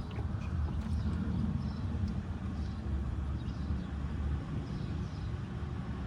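Old engine oil pouring steadily from the open drain-plug hole of a 2000 Honda Accord into a drain pan, under a steady low rumble.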